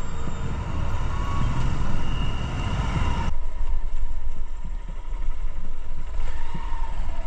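Motorcycle engine running under way with wind noise on the helmet microphone and surrounding traffic, cutting sharply about three seconds in to a quieter, low engine rumble as the bike rolls slowly along a dirt lane.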